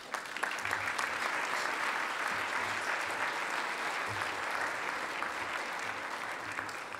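Audience applauding steadily after an award acceptance speech.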